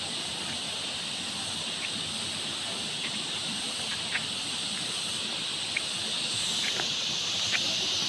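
A steady high hiss from the surroundings, growing louder near the end, with a few faint clicks of people's footsteps through trailside ferns.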